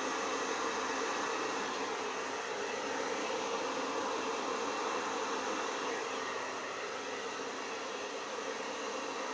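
Handheld hair dryer running steadily on its cool setting: a continuous rush of air with a steady motor hum.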